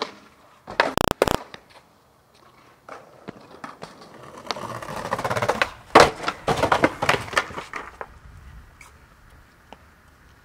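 Skateboard wheels rolling on concrete, growing louder, then a sharp pop of the board's tail and the landing with a clatter of wheels, trucks and board, and rolling away. A few sharp knocks come about a second in.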